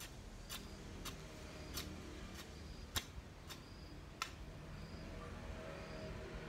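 A long-handled hoe chopping into the ground: eight sharp strikes a little over half a second apart, the loudest about three seconds in, stopping after about four seconds. A faint high chirping repeats behind them.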